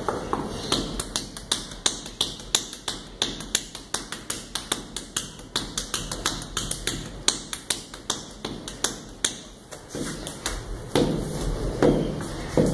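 Bare hands striking a painted masonry wall in quick succession, about four sharp taps a second. In the last couple of seconds the strikes turn duller and heavier.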